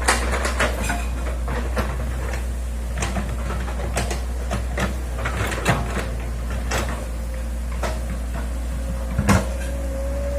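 Hitachi hydraulic excavator at work digging a ditch: the engine runs with a steady low hum while its bucket and arm clank and knock many times, the loudest knock near the end. A faint rising whine comes in near the end.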